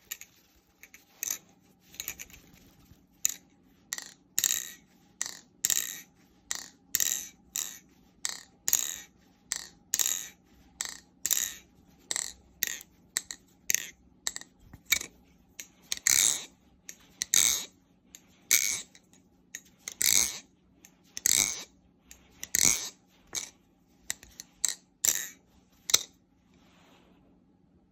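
Swordfish balisong (butterfly knife) being flipped, its handles snapping open and shut with sharp metallic clicks, about one or two a second, stopping near the end.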